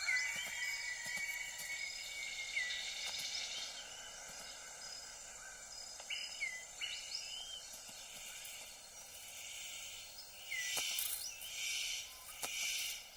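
Tropical rainforest ambience: short whistled bird calls now and then over a steady high insect drone, with three louder buzzing insect bursts near the end.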